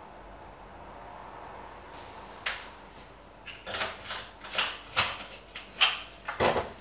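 An irregular run of sharp clicks and knocks, starting about two and a half seconds in, as a plastic coolant bottle is handled on a stone countertop.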